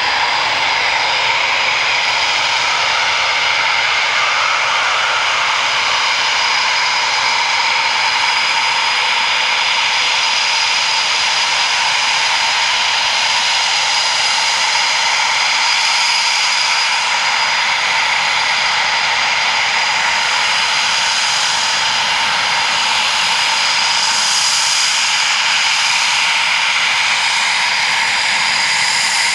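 Eurofighter Typhoon jets' twin EJ200 turbofan engines running at low power as they taxi, a steady loud whine with high tones over a constant rush.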